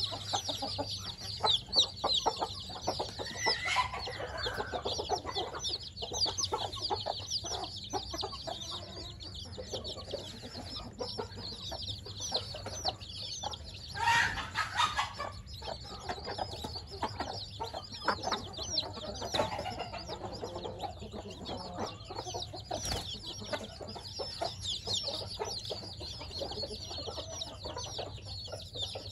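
A brood of week-old chicks peeping without pause, many quick high cheeps overlapping. Twice, a few seconds in and again about halfway through, a louder, lower call stands out over the peeping.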